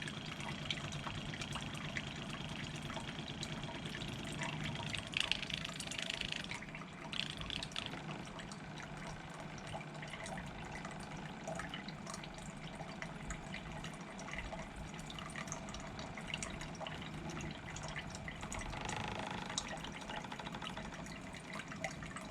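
RO booster pump running with a steady low hum while water trickles and drips from the system's outlet. It keeps running without switching on and off, with a small accumulator now buffering the pressure at the high-pressure switch.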